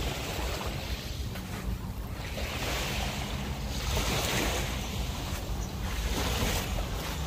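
Waves washing onto the shore, the hiss of the water swelling twice and falling back, with wind rumbling on the microphone.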